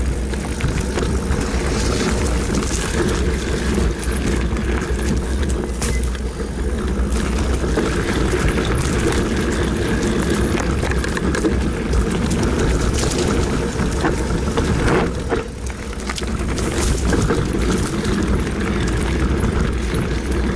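Wind rumble on a ride-mounted camera microphone mixed with the rattle and clatter of a full-suspension mountain bike (2018 Rocky Mountain Altitude) rolling fast downhill over a rough dirt trail. The noise eases briefly about fifteen seconds in.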